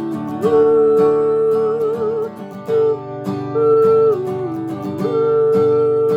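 Strummed acoustic guitar accompanying a wordless sung "ooh" melody in long held notes.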